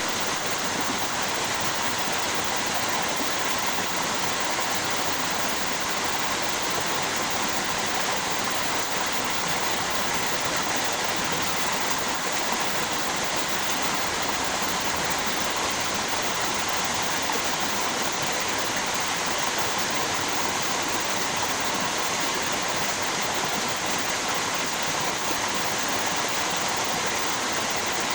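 River water flowing with a small waterfall: a steady, even rush of water that does not change.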